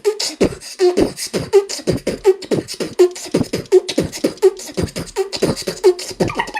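Beatboxing: a fast, steady rhythm of vocal 'boom' beats and short pitched blips.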